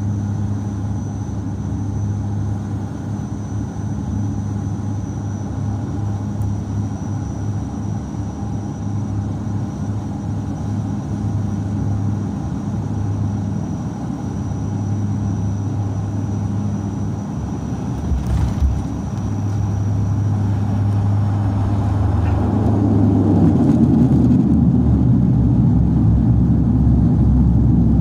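Airliner cabin noise on landing: the engines hum steadily with a faint high whine on final approach, a brief thump about 18 seconds in marks the wheels touching down, and a few seconds later the engine noise rises sharply to a loud rushing roar as reverse thrust slows the plane on the runway.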